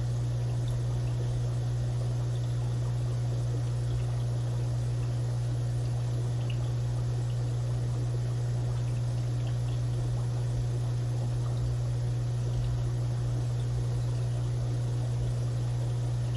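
Aquarium filter running: a steady low hum with water trickling.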